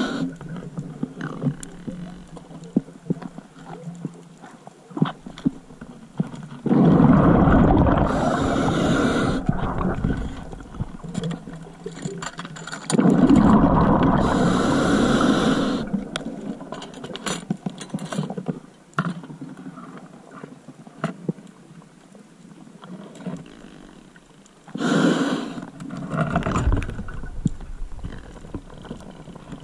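Underwater breathing on scuba: a diver's exhaled bubbles surging out of the regulator in three long bursts, about 7, 13 and 25 seconds in, with scattered faint clicks in the quieter stretches between breaths.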